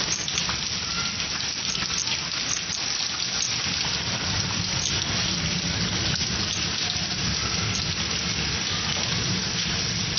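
Heavy rain falling steadily onto a wet concrete yard: a dense, even hiss of drops splashing on pooled water and hard ground.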